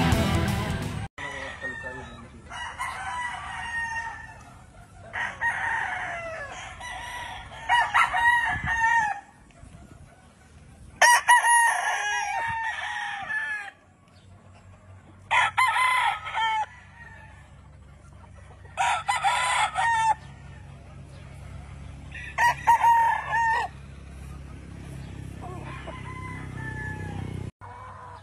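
Gamefowl roosters crowing one after another, about seven or eight crows each lasting a second or two and a few seconds apart. Guitar music cuts off about a second in.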